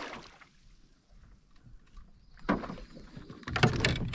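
Water splashing and knocking around a canoe, in two short bursts about two and a half and three and a half seconds in.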